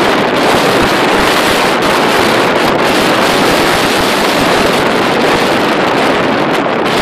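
Storm wind buffeting the microphone: a loud, steady rushing, with choppy waves slapping on the water.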